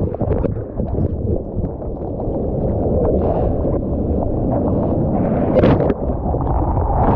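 Strong wind buffeting the microphone, with ocean water sloshing and splashing around it.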